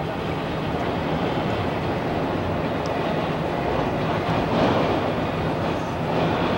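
Steady road noise inside a moving car: a constant low rumble and rush of tyres and wind.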